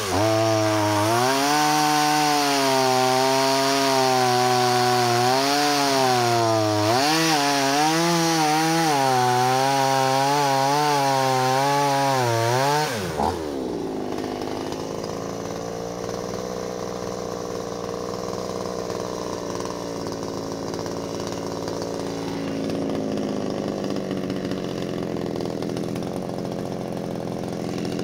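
Small 25 cc two-stroke pruning chainsaw at high revs, its pitch rising and falling as it labours through a log; about thirteen seconds in it drops back to a quieter, lower idle. The saw runs well but cuts slowly, being too small for a 40 cm log.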